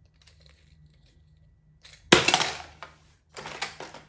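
Hard plastic toy elephant set down into a plastic basin, landing with a sharp clatter against the other plastic toys about halfway through, followed about a second later by a shorter rattle of clicks as it settles.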